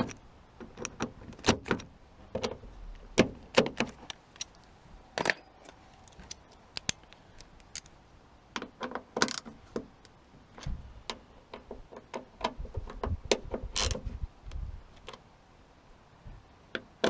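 Scattered small metallic clicks, taps and rattles from hand-fitting car door lock parts and tools, irregular and spaced out.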